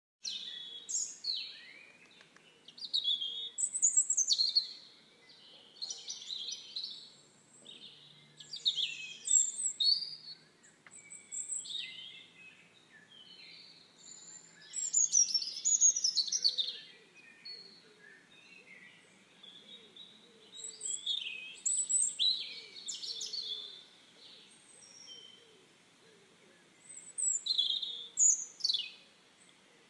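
Songbirds singing: short, high chirping and whistled phrases every few seconds, some overlapping, with quieter gaps between.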